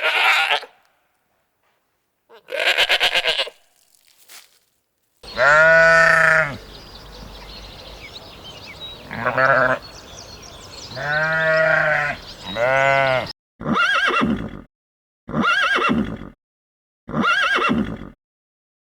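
Farm animal calls played one after another: a few short calls first, then several long, drawn-out calls that rise and fall in pitch over background noise, then three short calls in a row.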